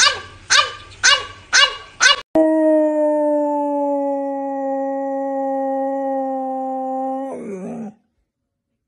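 A black French bulldog barks sharply five times, about twice a second. Then a second dog holds one long, steady howl, a "solo", for about five seconds before it slides down and breaks off.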